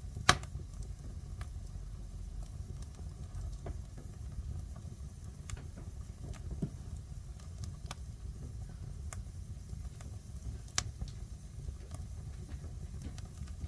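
Wood fire burning in a fireplace: a steady low rumble of the flames with scattered crackles and pops, a loud pop just after the start and another near the end.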